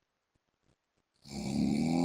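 A man snoring: a quiet pause, then one loud snore begins a little over a second in and is still going at the end.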